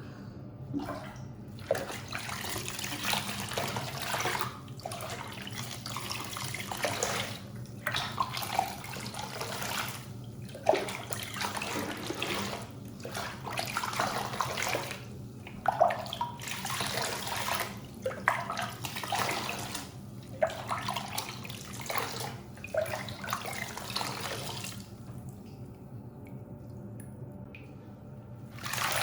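Water from a shower running and splashing in a bathtub as a small dog is washed, coming in bursts of a few seconds that stop and start again, until it shuts off about 25 seconds in.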